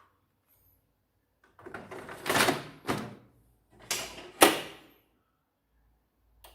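Plastic sliding and clunking in two bursts of about a second each as a 12A toner cartridge is pushed into a Canon LBP2900 laser printer, with a sharp knock in the second burst.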